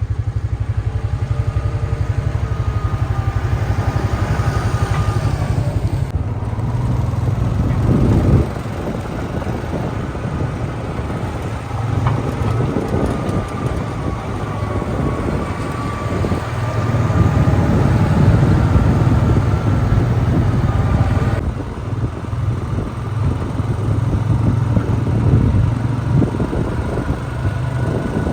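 A motor engine running steadily with a low rumble, and a faint wavering whine above it.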